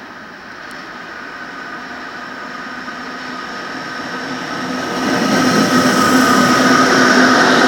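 A pair of Class 86 electric locomotives at the head of a container train approaching and passing close by. A steady electric hum and whine rides over the running noise of wheels on rail, growing louder throughout and stepping up about five seconds in as the locomotives draw level.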